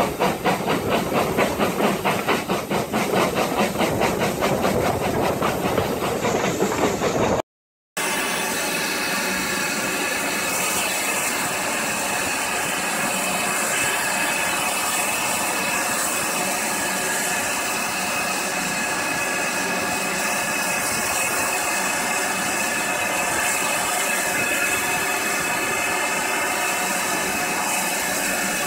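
Steam locomotive exhaust beating quickly and evenly as the train runs, heard from an open carriage window. After a short break, the GWR Manor-class 4-6-0 locomotive 7802 Bradley Manor stands still and hisses steam steadily.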